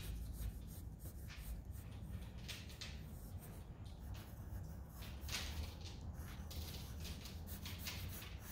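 Thick-lead pencil scratching on paper in short, irregular strokes as outlines are drawn, over a faint low hum.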